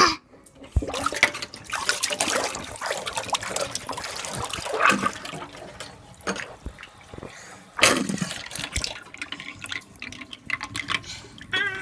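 Water draining down a stainless steel sink's plughole in a swirling whirlpool, splashing and gurgling unevenly, with louder surges about five and eight seconds in.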